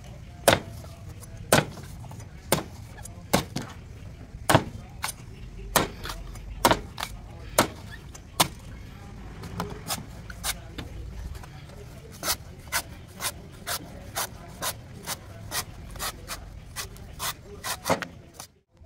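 Knife blade chopping into a young coconut's husk: a long run of sharp strikes, uneven at first, then settling into a steady beat of about two a second in the last third.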